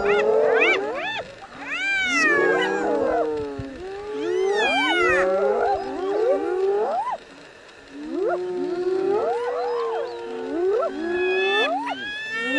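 A pack of spotted hyenas calling all at once: many overlapping squealing, yelping calls that swoop up and down in pitch. There is a short lull about seven seconds in, then the calling picks up again.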